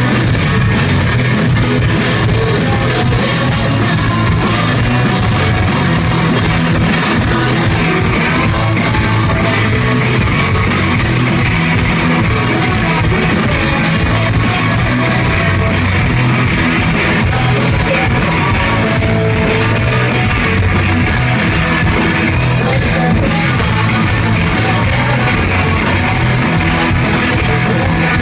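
Rock band playing live, loud and dense with drum kit and guitars, without a break.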